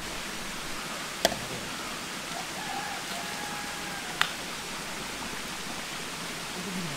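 Steady hiss of water, with two sharp clicks, one about a second in and one about four seconds in.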